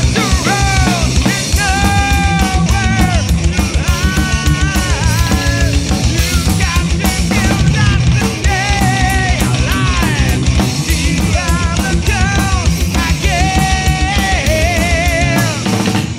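Heavy metal song in an instrumental passage: fast, driving drums under a high lead melody that bends and slides in pitch.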